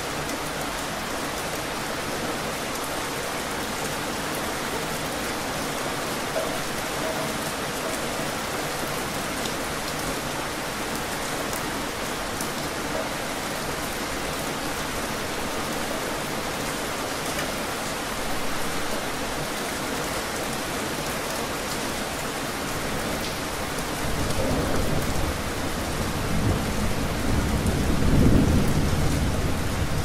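Steady rain falling, with a low rumble of thunder that builds about four-fifths of the way in and is loudest near the end.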